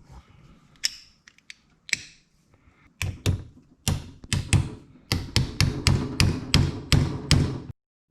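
Metal clicking from a half-inch Proto 5449 hand ratchet's freshly greased gear and pawl mechanism being worked by hand: a few scattered clicks, then a steady run of sharp clicks about three a second that cuts off suddenly near the end.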